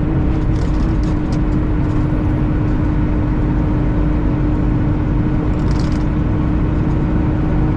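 Semi truck heard from inside the cab while driving: steady engine and road rumble with a constant low hum.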